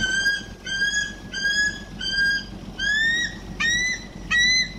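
Bald eagle call played from a recording: a series of about eight high, thin whistled notes, the later ones shorter and slightly higher in pitch.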